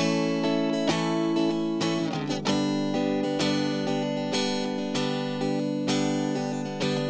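Background music: acoustic guitar strumming chords at a steady pace.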